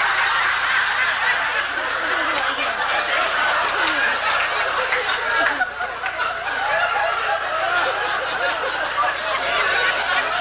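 Audience laughing together at a joke's punchline, a long steady wave of many voices that keeps going without dying away.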